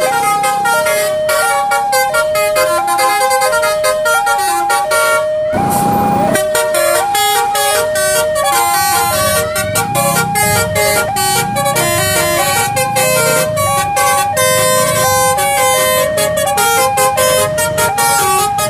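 Railway level crossing warning alarm sounding its repeated two-tone chime, a high and a low note alternating about once a second, with road traffic underneath. A short loud noisy blast about five and a half seconds in.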